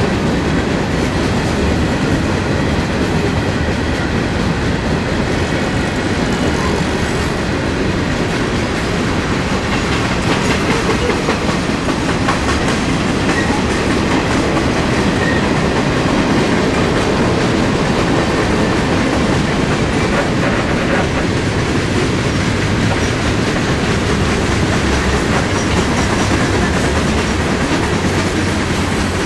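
Freight cars of a long mixed freight train rolling steadily past: the continuous noise of steel wheels on the rails, with a run of clicks as the wheel sets cross the rail joints.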